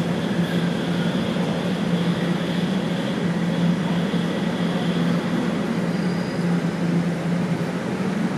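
Inside a Toronto TTC Line 1 subway car running into a station: a steady rumble of wheels and traction motors with a strong low hum, and a thin high whine that fades out about halfway through.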